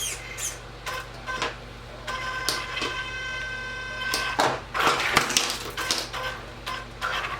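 Feiyue FY03 1/12-scale RC truck's electric drive and steering servo being tried out: a steady electric whine for about two seconds, then short bursts of buzzing and clicking as the steering servo twitches back and forth. The twitching is what the owner calls jumpy steering.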